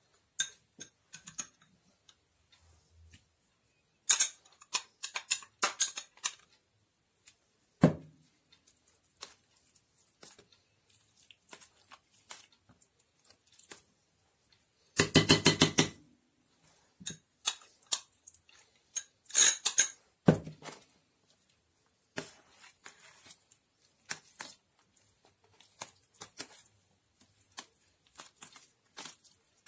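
Spoon spreading mayonnaise over a layered salad in a stainless steel ring mould: scattered scrapes, taps and clicks of the spoon against the metal ring and dish. A thick run of rapid clicks lasts about a second around halfway.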